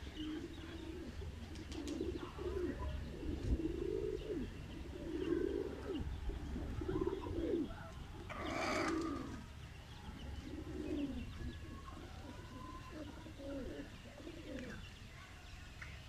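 A flock of domestic pigeons cooing, many low, rolling coos overlapping one after another. There is a short rushing burst about halfway through.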